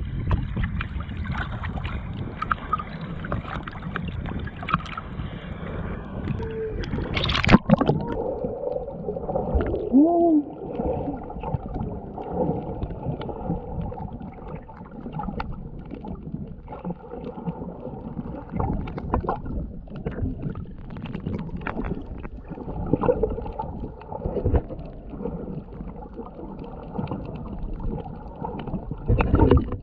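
Sea water sloshing and gurgling close to the microphone during snorkeling, with a sharp splash about seven and a half seconds in, after which the sound turns duller and muffled, as heard under water.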